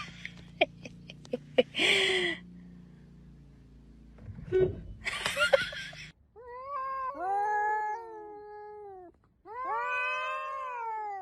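Domestic cat yowling: two long drawn-out meows that rise and fall in pitch in the second half. Before them come a few clicks and two short hissing bursts.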